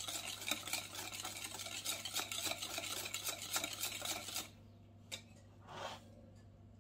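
Wire whisk beating a runny egg and sugar mixture in a glass bowl: a quick, busy run of light metal clicks and scrapes against the glass that stops about four and a half seconds in. After that, a single faint knock and a short rustle.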